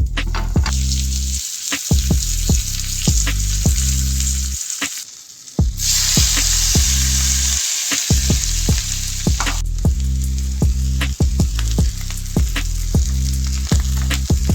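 Food sizzling in a hot frying pan as it is stirred, with scattered clicks and scrapes. The sizzle grows louder for a few seconds around the middle.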